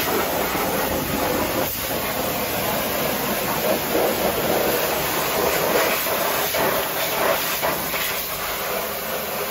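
Pressure-washer lance blasting a high-pressure water jet against a vehicle's underbody: a loud, steady hiss of spray on metal.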